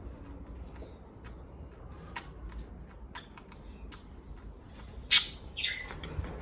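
Pet birds chirping in short, scattered calls, then one loud squawk about five seconds in, followed by a call that falls in pitch.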